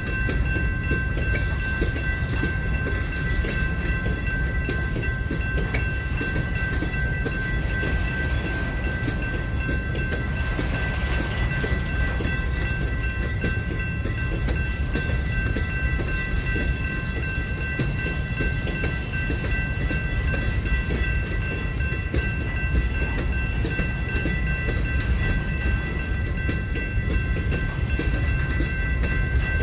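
Train rolling along the rails: a steady low rumble with a constant high-pitched whine held over it throughout.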